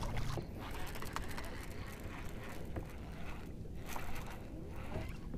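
Small waves lapping against a bass boat's hull, with wind on the microphone and a few faint ticks.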